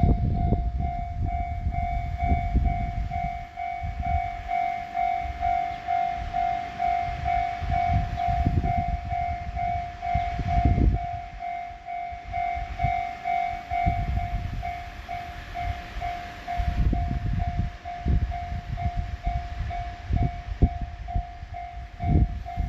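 Japanese railway level-crossing warning alarms ringing: a loud repeating electronic ding from one warning unit, with a fainter, higher repeating tone from the second unit sounding alongside. An uneven low rumble runs underneath.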